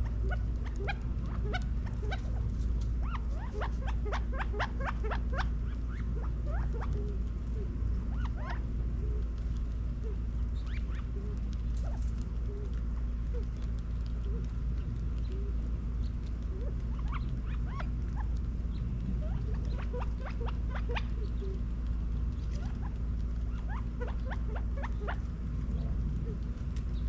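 Quail pecking at seed on concrete: bursts of quick, light ticks that come and go over a steady low hum.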